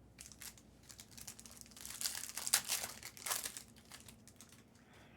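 Crinkling of trading-card pack wrapping being handled, a run of crackles that is loudest between about two and three and a half seconds in.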